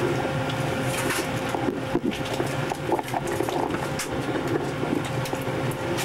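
Steady hum of a warship compartment's machinery and ventilation, with many small clicks and rustles as a roomful of sailors pull gas masks out of their carriers and strap them on.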